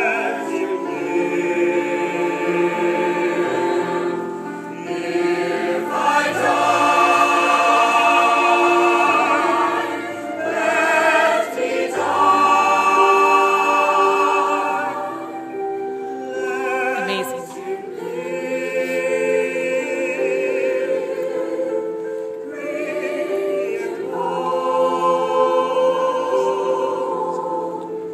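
A choir singing slow, held phrases that swell and fade in loudness.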